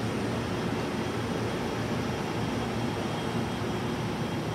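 Steady rumbling noise of a busy railway station platform, even in level throughout, with a faint steady high-pitched tone over it.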